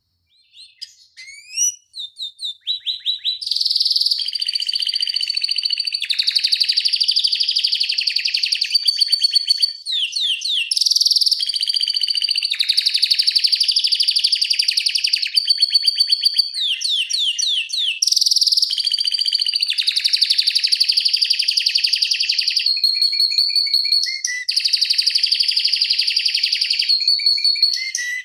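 Domestic canary in full song, a long run of fast, tight rolls and trills. It starts with a few separate chirps and quick note series, then from about four seconds in runs almost unbroken, with only a brief dip near the ten-second mark.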